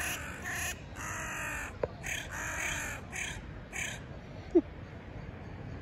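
Crows cawing in a rapid series of harsh calls, one of them drawn out, in a territorial squabble between a young crow with its mate and its parents; the calls stop about four seconds in. A brief sharp falling squeak follows about half a second later.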